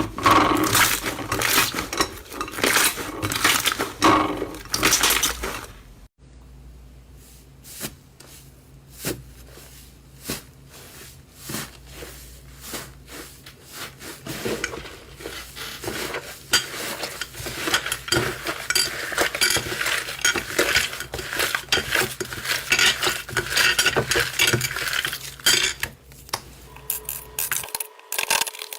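Slime being squeezed and pressed by hand, making dense crackling and clicking. It breaks off abruptly about six seconds in, turns sparse and quieter for several seconds, then grows dense again.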